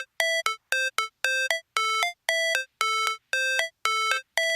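Background music: a synthesized figure of short, clean beeping notes on a few pitches, repeating about two a second with silence between them.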